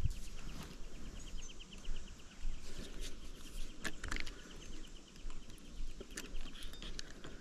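Fishing rod and spinning reel handled during a cast: a few scattered sharp clicks, the loudest about four seconds in. Behind them runs a rapid, even, high pulsing trill.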